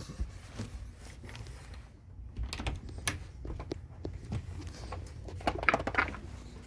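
Footsteps and scattered small knocks and clicks of a person moving through a small room, with a denser clatter about five and a half seconds in.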